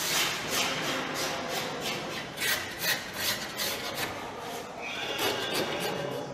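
Hand sanding of a wooden lattice frame: rhythmic rubbing strokes of abrasive on wood, about two a second, which stop about four and a half seconds in.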